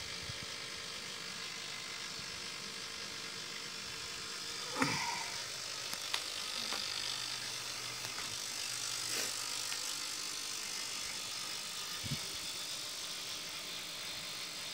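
Steady low hiss with a few handling knocks and clicks as the camera is moved around, the loudest knock about five seconds in.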